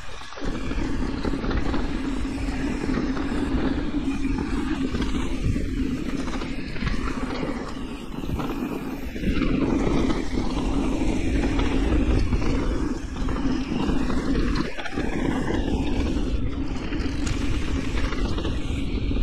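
Electric mountain bike riding down a dirt enduro trail: continuous rumble of tyres over the ground and wind on the camera microphone, with a steady buzz running under it. It gets louder about halfway through.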